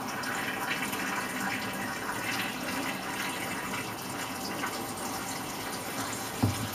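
Gentle tap water running steadily into a closed 35 mm film developing tank in the sink, filling it for the wash after the fixer. A brief knock near the end.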